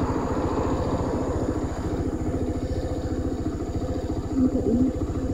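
Motorcycle engine running steadily at an even rate, heard from the pillion seat.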